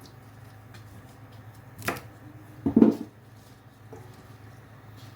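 A sharp click about two seconds in, then a louder, duller knock about a second later, over a faint steady low hum.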